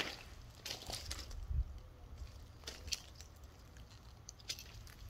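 Faint, irregular footsteps with light crunching and rustling, over a low rumble; a sharp click at the very start.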